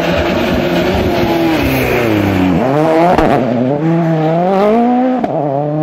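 Ford Fiesta RS WRC rally car's turbocharged four-cylinder engine revving hard as the car passes close by. Its pitch drops sharply about halfway and again near the end, climbing again after each drop.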